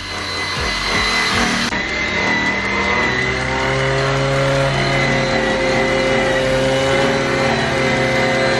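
Electric random orbital sander running steadily against the lip of a forged aluminium wheel, sanding out curb rash.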